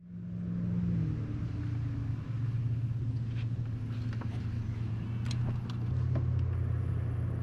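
A boat motor running with a steady low hum that swells over the first second and then holds, with a few faint clicks over it.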